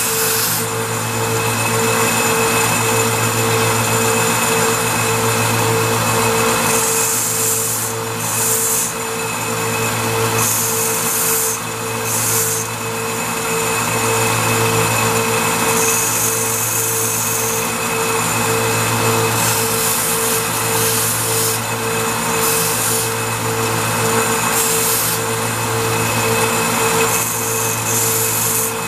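Narrow-belt bench sander running steadily with a constant motor hum, while the head of a stainless steel bolt is ground on the belt to round it into a dome. Several short spells of higher grinding hiss come and go as the steel is pressed to the belt.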